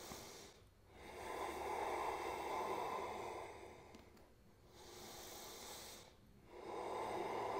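A man breathing slowly and deeply: a long breath, a shorter, softer one, then another long one near the end.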